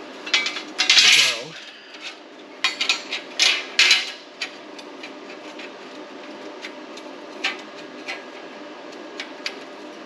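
Steel parts clanking and clinking as they are handled and set down on a metal surface: a busy cluster of clanks in the first four seconds or so, then only occasional light ticks.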